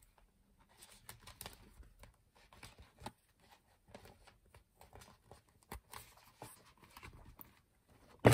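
Faint, scattered crinkles, scrapes and clicks of a stiff clear plastic cover being worked onto a B6 paper planner, with a sharp knock near the end.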